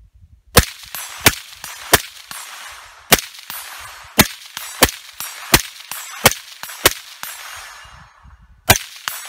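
5.56 AR-style rifle firing through a Yankee Hill Machine Phantom M2 .30-calibre suppressor: about ten shots in a steady string, roughly one every half second to second, with a pause of nearly two seconds before the last one. Between shots come fainter tings from steel targets being hit.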